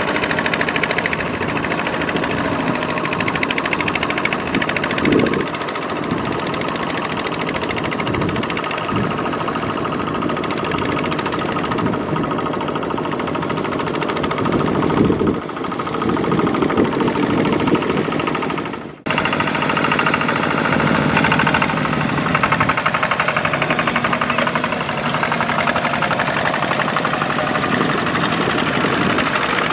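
Two-wheel walking tractor's single-cylinder diesel engine chugging steadily under load, with a rapid even beat, as it hauls a loaded trailer through mud. The sound cuts off abruptly about two-thirds of the way through and picks up again at once.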